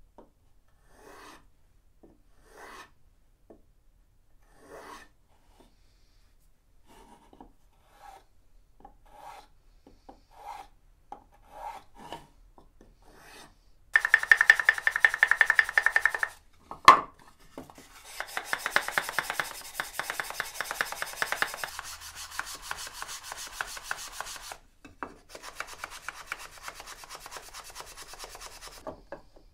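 Hand sanding a wooden box with a sanding sponge: quick back-and-forth rasping of abrasive on wood, loud and continuous through the second half with a short break. A sharp knock comes about halfway through. It is preceded by light, separate rubbing strokes on the wood.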